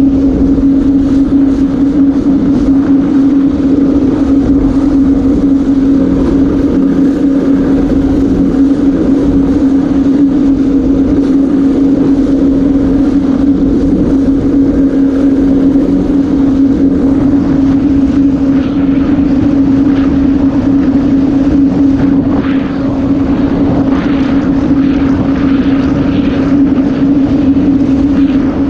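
Yamaha VX110 WaveRunner's engine running steadily under way, a loud drone holding one pitch throughout.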